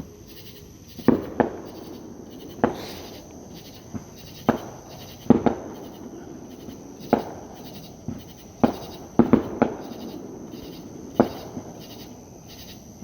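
Fireworks show bursting: about a dozen echoing bangs at uneven intervals, some in quick pairs, over a steady pulsing chorus of night insects.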